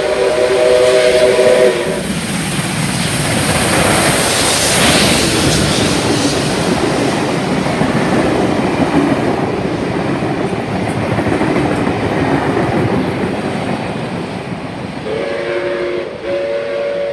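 D59-class steam locomotive 5917's whistle sounds a long blast of several notes at once, followed by the loud noise of the locomotive and its heritage carriages running past on the rails. Near the end the whistle sounds twice more as the train draws away.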